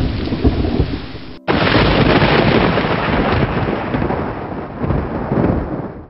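Rain-and-thunder ambience: a dense, steady rush of rain with low rumbling. It breaks off abruptly about a second and a half in, comes straight back, and cuts off at the end.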